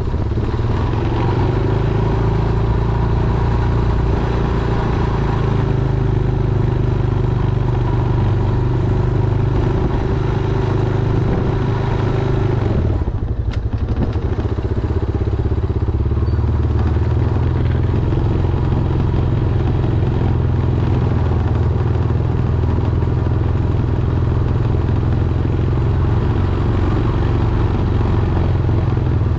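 Honda Foreman ATV's single-cylinder four-stroke engine running while plowing snow. The engine note holds steady, dips and shifts in pitch about halfway through, then steadies again.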